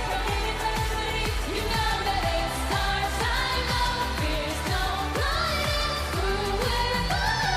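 Pop song performance with female voices singing a melody over a steady beat.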